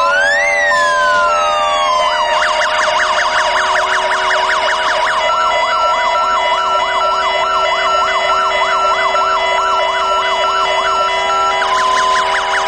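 Fire engine sirens, several sounding at once. A slow rising-and-falling wail at the start gives way to a fast yelp, and about five seconds in a two-tone siren joins, alternating between two pitches over it.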